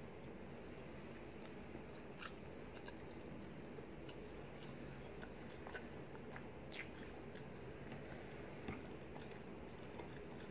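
Close-up chewing and small wet mouth clicks of a person eating rice and curry, over a steady low hum.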